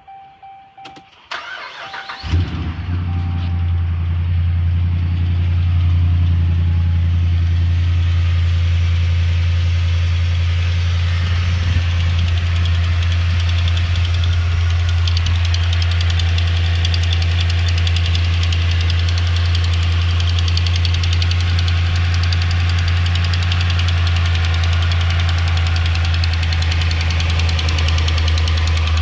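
2009 Dodge Ram 1500's 5.7 Hemi V8 cranking and catching about two seconds in, then idling steadily with a rapid tick, louder on the passenger side. The owner asks whether it is the normal Hemi tick or an exhaust manifold leak, and suspects a broken manifold bolt.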